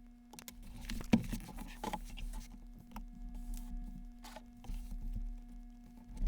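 Light handling noises: scattered soft clicks, taps and rustling of objects being picked up and moved, the sharpest about a second in, over a faint steady hum.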